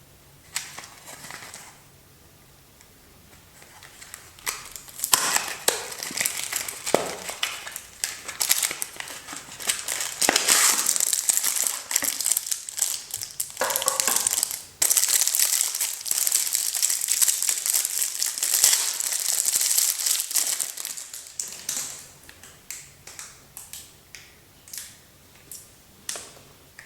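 Soap packaging being opened by hand: dense crinkling and crackling of the wrapper. It builds after a few seconds, is heaviest through the middle, and thins to scattered single crackles near the end.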